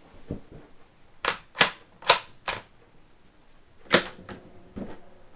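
Bolt action of a brand-new Ruger American .22 LR rifle being worked by hand, opened and closed. Four sharp metallic clicks come in quick succession about a second in, then a single click near the end.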